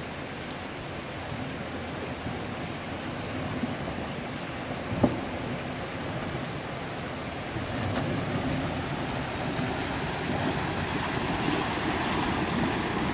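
Water rushing and splashing as a Toyota 4Runner drives through a shallow creek, the tyres pushing a bow wave through the water. The splashing grows louder from about eight seconds in, and there is one short knock about five seconds in.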